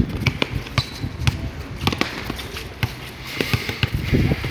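Basketball bouncing on a concrete court: a run of sharp, irregularly spaced thumps as the ball is dribbled and played.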